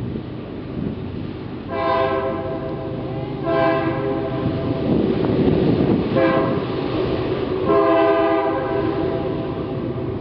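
Freight locomotive's air horn sounding four blasts with several tones at once, long, long, short, long: the grade-crossing signal pattern. A steady low rumble runs underneath.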